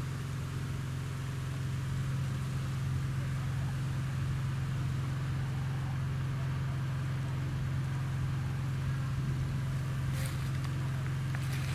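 A vehicle engine running steadily with a low, even hum, and a few faint clicks near the end.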